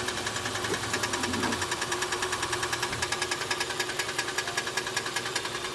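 Failing CVT transmission of a 2013 Nissan Sentra ticking fast and evenly while running in gear: the ticking is the sign of the transmission beginning to fail.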